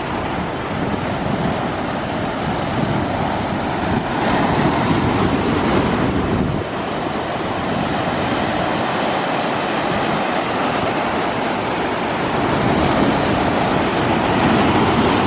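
Waves of a typhoon swell breaking and rushing in, a continuous roar of surf that swells louder from about four to six and a half seconds in and again near the end, with wind buffeting the microphone.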